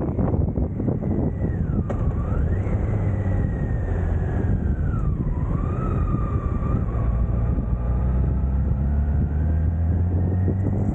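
BMW K1600 GTL motorcycle's inline-six engine running on the move, with wind noise on the microphone. A thin whine rides over it, dipping in pitch about two seconds in and again around five seconds, then slowly climbing back.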